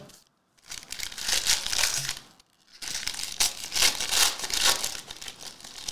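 Plastic wrapping on a cased trading card crinkling and tearing as it is pulled off by hand. The sound comes in two stretches with a short pause between them, about two and a half seconds in.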